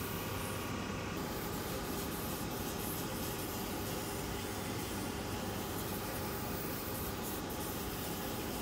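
Leather skiving machine running steadily while a leather sandal strap is fed through it under the presser foot and toothed feed roller.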